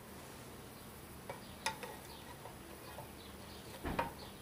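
Faint, scattered small metal ticks and light scraping from a hand tool working at a Briggs & Stratton carburetor, with a slightly louder cluster of clicks near the end.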